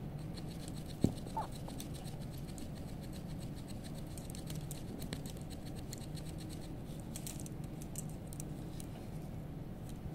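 Metal wax carver scraping and shaving a block of dental carving wax: faint, irregular small scratches, with one sharp click about a second in.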